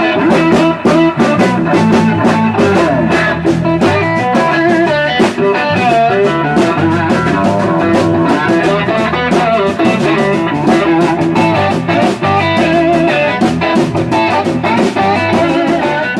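Background music: a blues-rock track led by electric guitar, with a steady beat.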